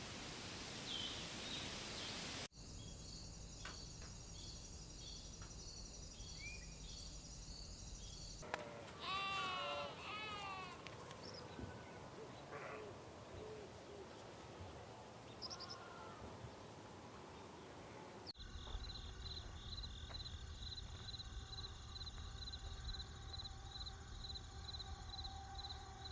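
A run of short nature ambience recordings cut one after another. First come scattered birdsong chirps. Then a high insect chirp pulses evenly over a soft hiss, followed by birds calling with a farm-animal call, and lastly crickets chirping in a fast, even rhythm over a low steady hum.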